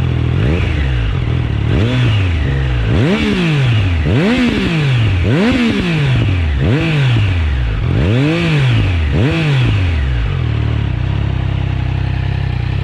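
Triumph Trident 660's inline three-cylinder engine breathing through a Yoshimura Alpha carbon exhaust, idling and then blipped about eight times, each rev rising and falling in pitch, before it settles back to idle near the end.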